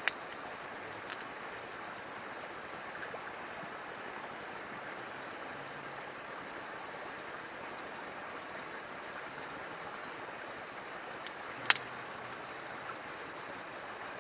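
Fire burning in a homemade fire pit: a steady hiss broken by a few sharp crackling pops, the loudest about two seconds before the end.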